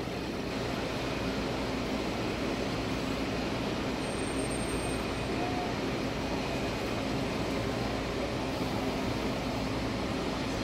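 Steady hum of idling vehicle engines and city traffic, at a constant level with no distinct events.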